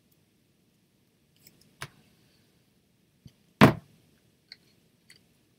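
Scattered clicks and knocks of small craft pieces being handled and set into a sardine tin. The loudest knock comes about three and a half seconds in, with a few fainter ticks around it.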